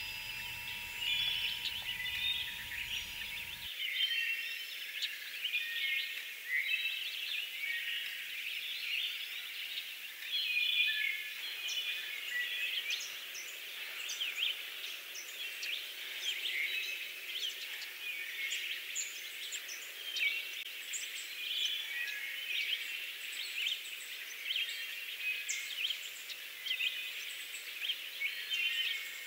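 A dense chorus of many birds chirping without pause, short overlapping high calls throughout.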